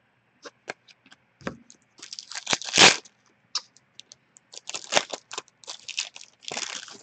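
Foil wrapper of a 2017-18 Upper Deck Series 1 hockey card pack crinkling and tearing in the hands: a scatter of sharp crackles, with the loudest crunch about three seconds in.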